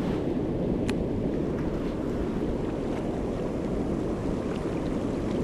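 Steady rush of fast, turbulent water churning white down a channel, with wind buffeting the microphone. A single light tick about a second in.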